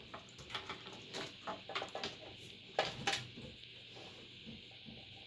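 Scattered light clicks and rustles of hands handling small computer parts while a CD audio cable is fetched, with a couple of slightly louder knocks about three seconds in.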